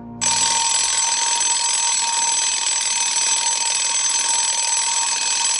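An alarm bell starts ringing abruptly just after the start and keeps ringing steadily and loudly.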